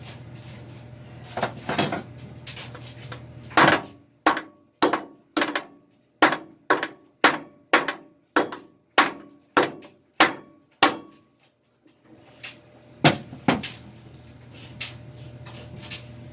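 A hammer striking metal in a steady series of about a dozen blows, roughly two every second, each with a short metallic ring. A couple more knocks follow near the end.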